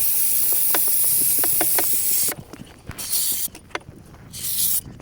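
Aerosol chain lube hissing onto a motorcycle's dry drive chain: one long spray for about two seconds, then two short bursts, with light clicking in between.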